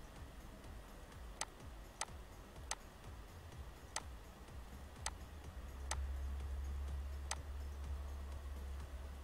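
Computer mouse button clicking about seven times at uneven intervals, over a low electrical hum that grows louder about six seconds in.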